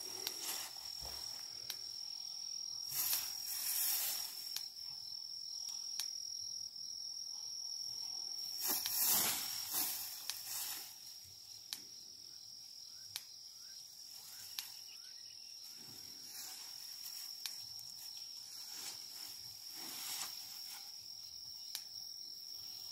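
A steady, high-pitched insect trill throughout, with bursts of dry grass rustling and tearing as a young elephant pulls and feeds on tall grass, loudest about nine seconds in.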